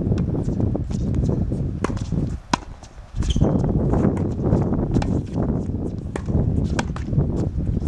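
Tennis ball struck by a racket and bouncing on the court: sharp pocks at irregular intervals, over a steady low rumbling noise that dips briefly about two and a half seconds in.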